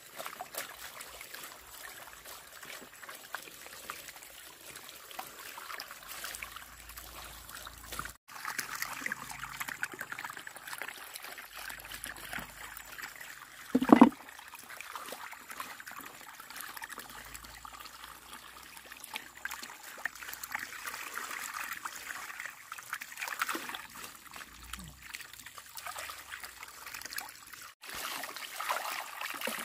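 Water trickling steadily, with one short, louder sound about 14 seconds in.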